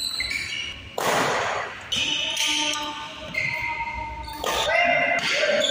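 Sports shoes squeaking and thudding on a hard indoor badminton court floor as players shift about, with voices in the hall.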